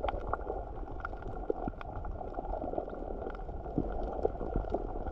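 Underwater sound picked up by a submerged camera: a steady, muffled rush of seawater with many scattered faint clicks.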